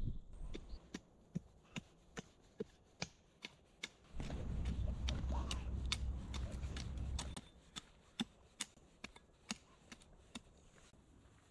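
A dog scrabbling and pawing at loose soil. A louder burst of scratching starts about four seconds in and lasts some three seconds, among scattered small clicks and crackles of dirt and twigs.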